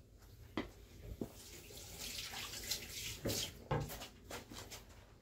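Kitchen tap running into a sink: a faint rush of water that builds about two seconds in and eases off after four, with a few light knocks.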